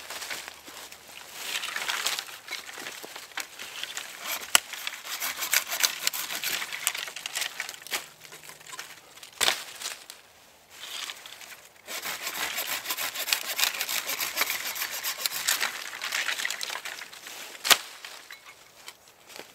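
Dry leaf litter and cut branches rustling and crackling as they are stepped on and handled, in two long busy stretches, with about three sharp snaps of dry wood.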